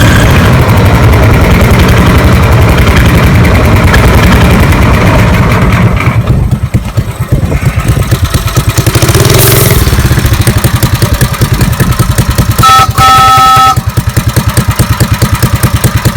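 A small engine running with a steady pulsing beat; the note eases about six seconds in. Near the end a homemade two-tone train whistle sounds for about a second, two notes together, with a short blip just before.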